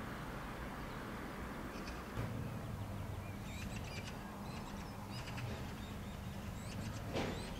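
Small birds chirping in quick short calls over a steady low hum, with a brief louder noise near the end.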